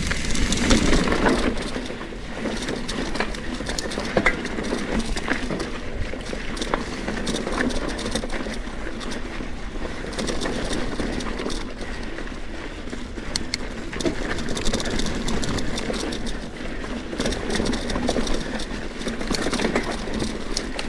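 Trek Fuel EX 9.7 mountain bike climbing a rocky technical trail: tyres grinding over rock and dirt, with frequent clicks and knocks from the bike over obstacles.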